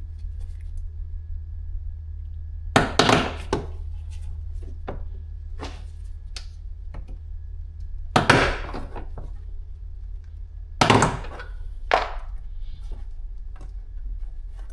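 Plastic retaining clips of a Fiat 500 interior door panel popping loose as the panel is pried off with a trim tool. There are a series of sharp snaps and knocks, the loudest about three, eight and eleven seconds in, over a steady low hum.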